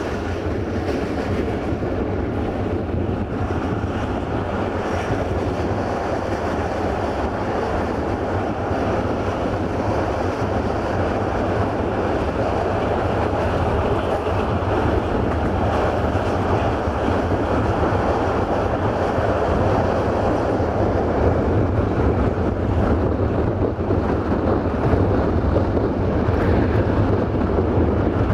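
Passenger train running at speed, heard from aboard: a continuous rumble of the wheels on the rails with a rush of air noise, growing slightly louder toward the end.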